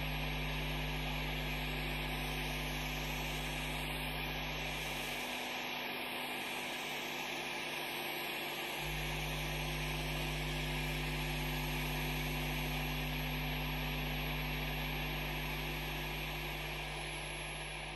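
Steady hiss with a low electrical hum. The low hum drops out for about three seconds in the middle, and the sound fades near the end.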